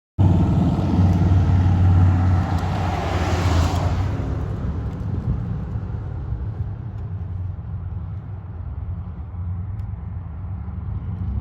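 A motor vehicle's engine running with a steady, deep rumble, swelling louder over the first few seconds before settling back.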